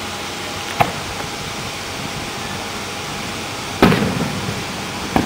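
Three sharp bangs over steady outdoor background noise: a small one about a second in, the loudest near the middle with a short echo, and another near the end.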